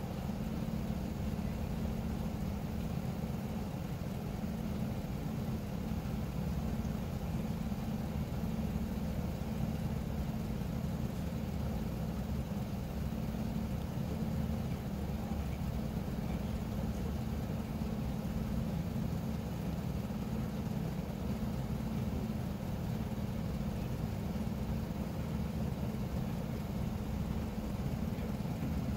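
Steady low rumble of an idling vehicle engine, unchanging throughout.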